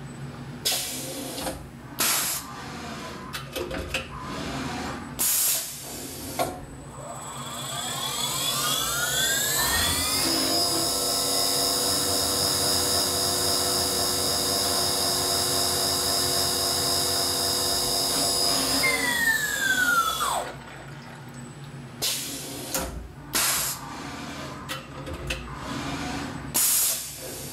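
Mini CNC vertical mill (Skyfire SVM-1) machining a set-screw hole in an aluminium part under coolant. The spindle spins up in a rising whine, runs steadily for about eight seconds while the tool cuts, then winds down in a falling whine. Short, sharp bursts of machine noise come before the spin-up and after the spindle stops.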